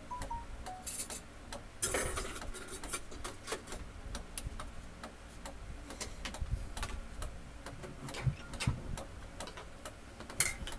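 Spoons and forks clinking and tapping against plates and a serving pot in small, irregular clicks, with a louder clatter about two seconds in and again near the end.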